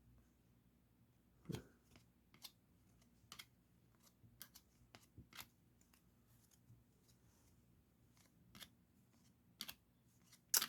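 Faint handling of baseball trading cards: about ten light, irregular clicks and snaps as the cards are slid and flipped one by one, the sharpest near the end.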